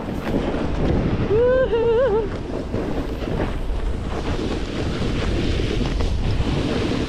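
Wind buffeting the camera microphone as a snowboard slides down a piste, the board hissing over the snow. A short wavering vocal call about a second and a half in.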